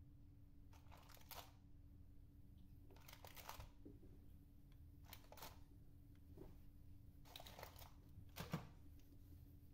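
Faint crinkling of a thin plastic tub, about five short rustles, as peanuts are picked out of it by hand, over a low steady hum.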